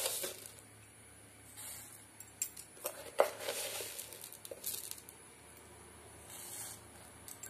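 Spatula stirring milk in a nonstick pan: soft swishes and scrapes, with a few light clicks and one sharper knock of the spatula a little after three seconds in.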